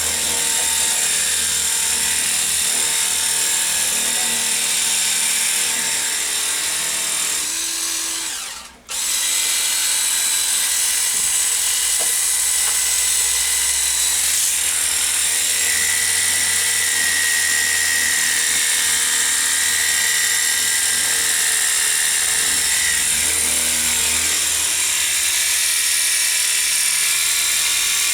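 Cordless 20-volt lithium-ion pressure washer's motor and pump running with a steady high whine. It cuts out for a moment about nine seconds in and starts again.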